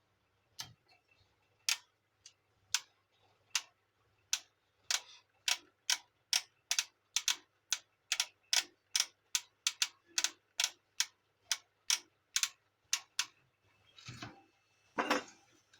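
Gear on a Canon imageCLASS MF4750 printer's gear assembly turned by hand, giving a series of sharp clicks, slow at first and speeding up to about two or three a second. This gear is the one blamed for the printer's noise. A brief rustle of handling follows near the end.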